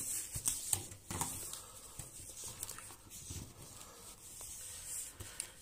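Handling noise of light clicks, taps and rustling as cables and a plastic drone battery are picked up and set down.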